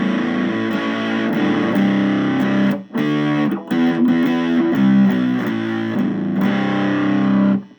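Electric guitar played through a breadboarded two-transistor Muff Fuzz circuit with its clipping diodes taken out, giving a loud fuzz-distorted tone: chords and riffs with a brief break about three seconds in, stopping sharply near the end.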